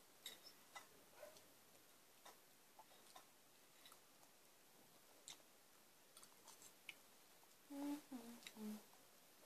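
Near silence with scattered faint clicks of metal forks on noodle bowls while eating. About 8 seconds in, a short closed-mouth hum of two or three falling notes.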